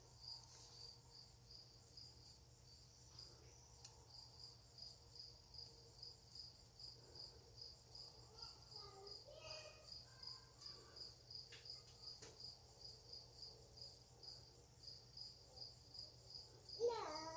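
An insect chirping steadily, about three high chirps a second. About a second before the end comes a brief, louder sound whose pitch slides up and down.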